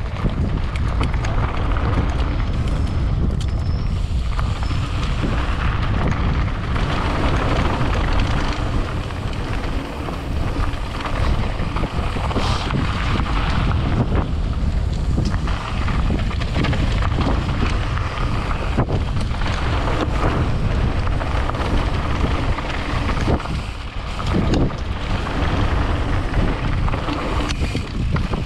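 Wind rushing over the microphone of a camera on a moving mountain bike descending a dirt trail, with the tyres rumbling and crunching over loose gravel.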